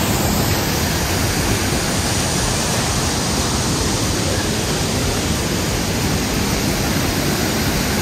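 Waterfall and shallow river pouring over rock ledges: a steady, even rush of water.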